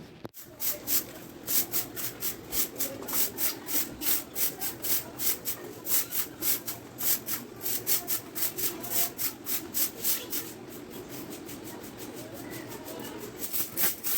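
A broom sweeping in brisk, rhythmic strokes, about two a second, brushing up spilled bird food and scraps; the strokes pause about ten seconds in and start again near the end.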